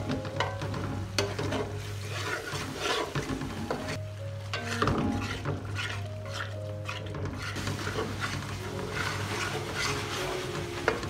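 A slotted metal spatula scrapes and stirs a thick spice masala around a metal pan in quick, repeated strokes, over a light frying sizzle. The yogurt is being stir-fried into the masala until the oil separates.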